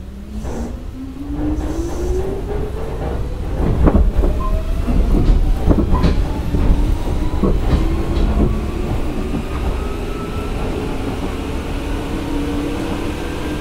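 Hanshin 5001-series 'Jet Car' electric train accelerating: the traction motors' whine climbs steadily in pitch, and the wheels knock over rail joints several times from about four seconds in.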